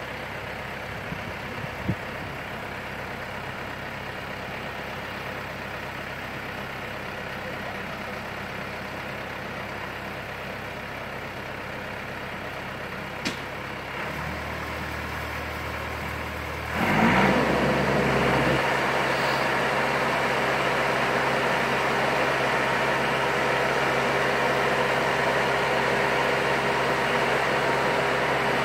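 A 35-ton boat-yard travel lift's engine idling, then speeding up and running louder from about 17 seconds in as the hoist is worked, with a steady tone over the running sound. A couple of faint clicks come earlier.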